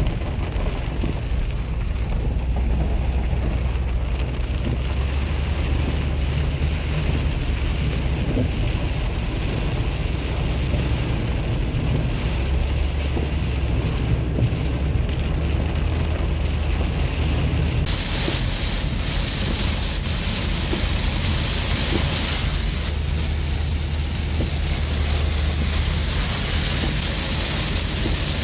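Heavy rain on a 2006 Ford Freestar minivan, heard from inside the cabin while driving, over a steady low rumble of road noise. About 18 seconds in, the hiss of rain and spray becomes louder and brighter.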